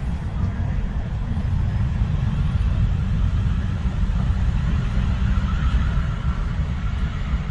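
Train pulling in at a platform: a steady low rumble, with a faint high squeal from about four to seven seconds in.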